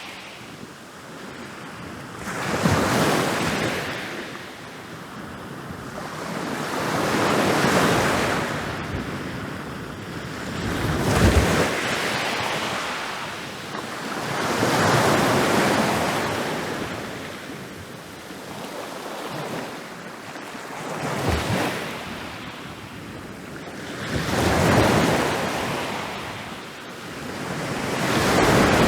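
Ocean waves breaking on a beach, one after another: each wave swells to a rushing crash and then draws back, roughly every four seconds, about seven times.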